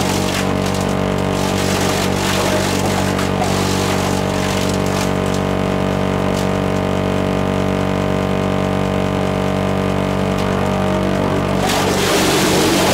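Paper-mill wood-handling machinery running with a loud, steady drone of several tones, over rushing water and the knocks of short log pieces tumbling along a water-sprayed conveyor. The rushing noise grows louder about a second before the end.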